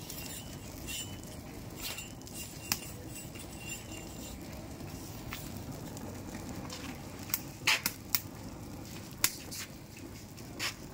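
Open wood fire burning under and along a whole roasting ram carcass: a steady low rush of flame with scattered sharp crackling pops, several close together about eight seconds in.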